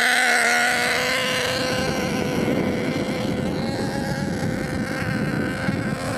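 Small nitro glow engine of an RC monster truck running at high revs through its tuned-pipe exhaust as the truck drives off, the engine note rising and falling with the throttle and getting a little fainter as the truck pulls away.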